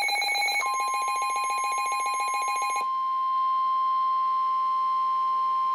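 Emergency alert tones: a rapidly pulsing, ringing alert tone, joined about half a second in by a steady single high tone. This is the roughly 1050 Hz warning alarm tone that signals a National Weather Service warning. The pulsing tone stops after about three seconds, and the steady tone carries on alone.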